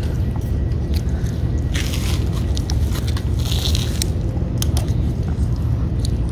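Cats eating wet cat food, with many short wet clicks of chewing and lapping over a steady low rumble. A brief rustle comes a little past halfway.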